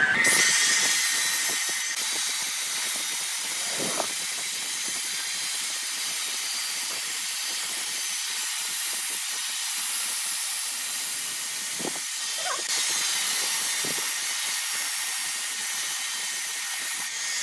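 Angle grinder fitted with a sanding disc running against a spinning areca-wood vase on a lathe: a steady high whine over a continuous hiss of abrasion.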